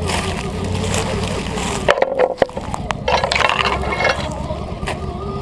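Axial SCX10 II RC crawler's electric motor and geared drivetrain whining steadily as it crawls. The drive eases off about two seconds in with a few sharp clicks, then picks up again with the crackle of dry leaves under the tyres.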